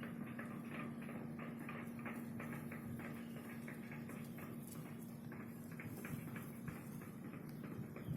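Rapid, uneven knocking, several sharp knocks a second, over a steady low hum.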